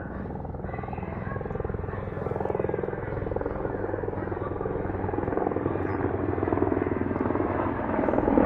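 Helicopter flying, its rotor beating in a fast, steady pulse over the engine drone, growing gradually louder.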